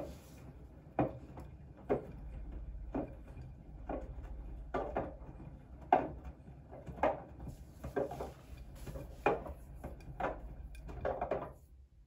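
Siemens front-loading washing machine drum turning a wet pillow in water: a slosh and soft thud about once a second over a low motor hum, stopping shortly before the end as the drum pauses.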